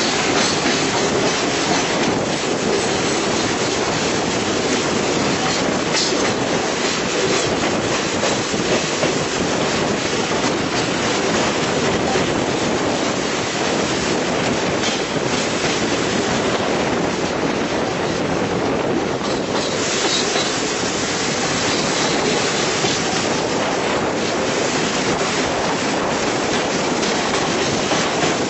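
A train running steadily over a bridge, heard from on board: an even, unbroken rush of wheel and rail noise with faint rapid ticks.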